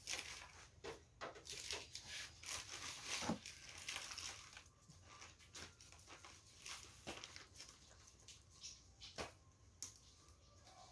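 Several dogs moving about on a tiled floor, their claws clicking and scuffing in short, irregular taps.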